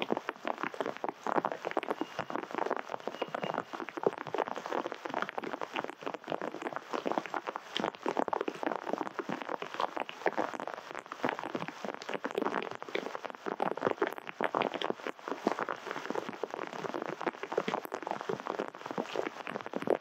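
Rain pattering steadily, a dense run of irregular drops.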